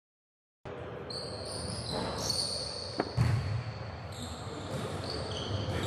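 Basketball game sounds on a hardwood court in a large echoing gym: the ball bouncing with dull thuds and sneakers squeaking in short high squeals. It starts abruptly a little under a second in, with a sharp knock about three seconds in followed by a heavy thud.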